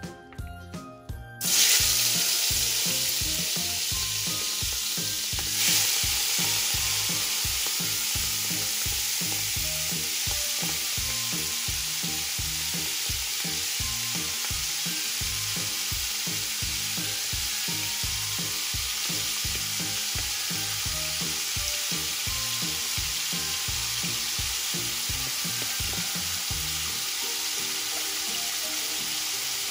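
Peeled shrimp hitting hot oil in an aluminum pot: a loud sizzle starts suddenly about a second and a half in, flares up again briefly around six seconds, then settles into steady frying.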